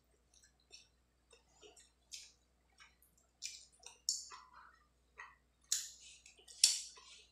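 Fingers mixing rice with curry on a plate, then wet chewing and lip-smacking of a mouthful: a scatter of short squelches and clicks, the loudest near the end.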